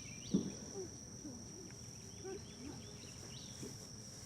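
Steady high-pitched insect drone, with faint distant voices and a short thump about a third of a second in.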